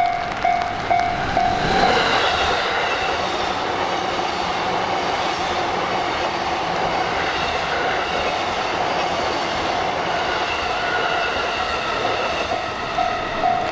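Level-crossing warning bell dinging about twice a second, soon drowned out by a train passing through the crossing with a steady rush and whining tones that glide. The bell comes through again near the end as the train noise falls away.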